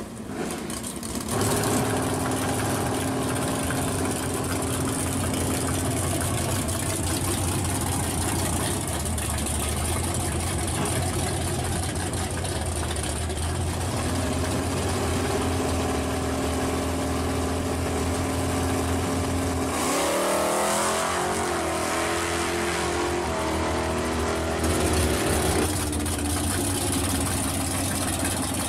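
Drag race cars' engines idling steadily at the start line, then revved up and down several times from about twenty seconds in.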